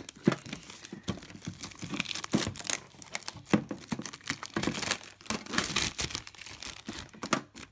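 Plastic shrink-wrap being torn and peeled off a tin lunch box, crinkling and crackling irregularly throughout.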